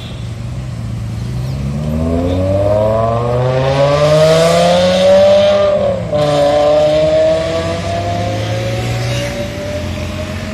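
BMW M6 with an Eisenmann race exhaust accelerating hard, its exhaust note climbing in pitch and growing loud. About six seconds in it drops briefly at an upshift, then climbs again more slowly as the car pulls away.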